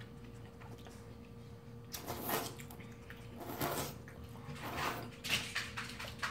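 A person slurping udon noodles from a bowl of broth in a series of noisy draws. The first comes about two seconds in, and they come closer together in the second half.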